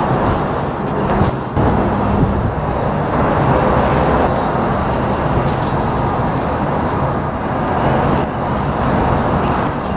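Freight train noise in a rail yard: a loud, steady rumble with hiss.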